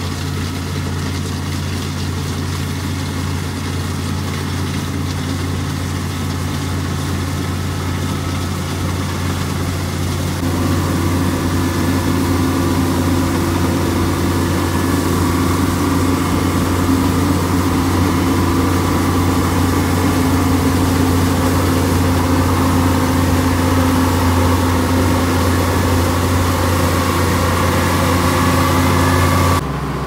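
International Harvester 1480 combine running while harvesting wheat: a steady diesel engine drone over the hum of its header and threshing machinery. It grows louder and fuller from about a third of the way in as the machine comes closer, and changes abruptly just before the end.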